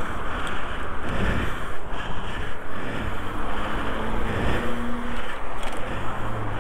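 Steady rush of road traffic mixed with wind noise on the microphone of a moving e-bike, with faint low steady tones in the middle.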